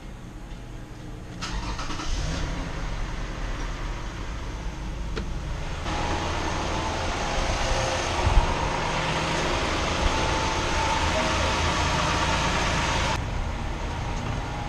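2015 Toyota Highlander engine starting about a second in and then idling, on its first run after an oil and filter change. From about six seconds in it is heard from the open engine bay, louder, until the sound drops abruptly near the end.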